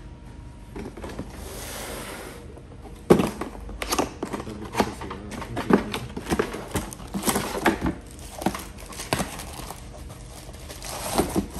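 Cardboard box flaps being opened and an electronics unit in clear air-column plastic packaging lifted out and handled. A soft rustle first, then from about three seconds in a dense string of sharp crinkles, crackles and clicks of plastic and cardboard.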